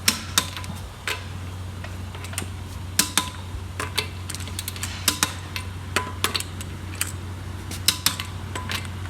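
Wheel lug nuts being tightened with a click-type torque wrench: a series of sharp metallic clicks, each with a brief ring, some coming in quick pairs, over a steady low hum.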